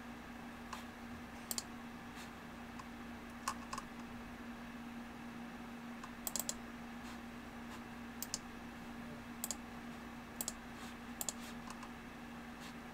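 Scattered, irregular computer key presses and clicks, some coming in quick pairs, over a faint steady low hum.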